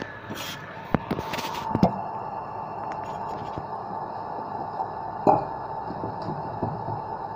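A few knocks and clatters of handling on a counter, the loudest about five seconds in as a stainless steel milk pitcher is set down on the wooden countertop, over a steady high hum.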